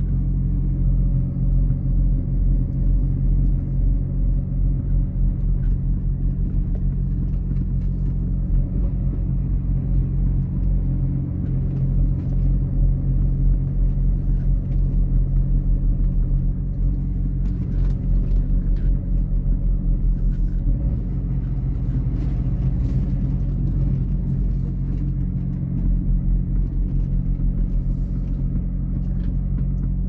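Heavy truck's diesel engine running steadily at a constant speed.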